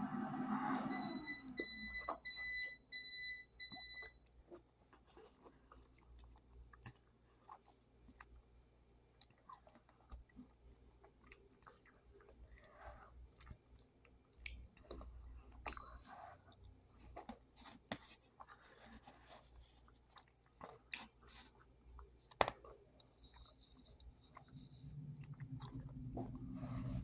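A person chewing spicy mac and cheese with the mouth close to the microphone, making soft, scattered mouth clicks and smacks. Near the start, an electronic device beeps several times in quick succession for about three seconds.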